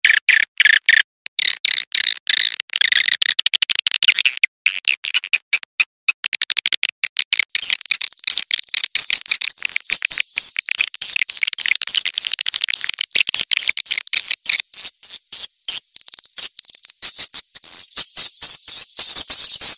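Recorded swiftlet calls played as a lure to draw swiftlets in: fast, continuous chattering trills of clicks, pitched lower for the first several seconds and higher from about eight seconds in.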